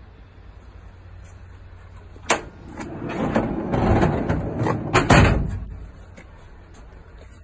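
A sharp click, then about three seconds of rumbling and knocking ending in a loud clunk about five seconds in: movement against the van's aluminium-lined load area and fittings.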